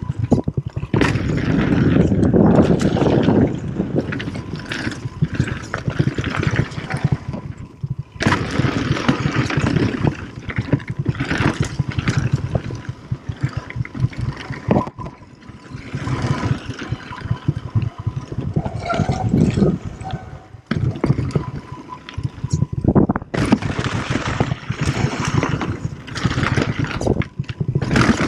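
Downhill mountain bike riding fast down a dirt and gravel trail: tyres rolling and crunching over loose ground, with the bike clattering over bumps and wind rushing over the camera microphone. The noise eases off briefly a few times.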